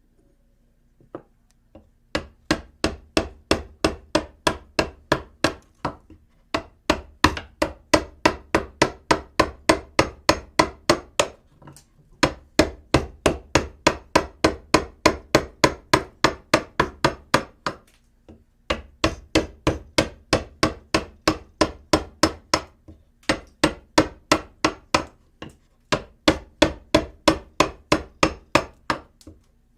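Construction hammering indoors: even, rapid hammer blows at about three to four a second, with a heavy low thud. They come in runs of several seconds broken by short pauses.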